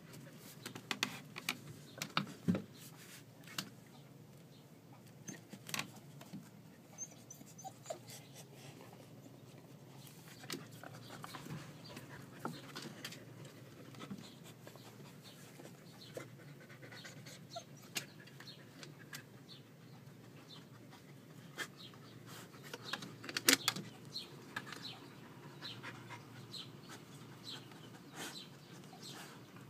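Husky-type dogs panting while they move around on a wooden plank floor, with scattered clicks and knocks of claws and paws on the boards; a louder cluster of knocks comes a little past two-thirds through.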